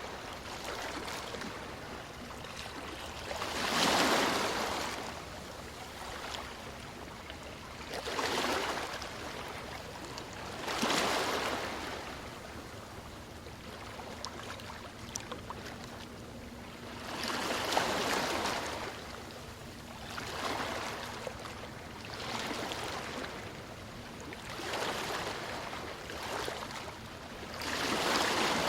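Ocean waves breaking and washing up a sandy beach: a steady surf hiss that swells into a louder surge with each wave every few seconds.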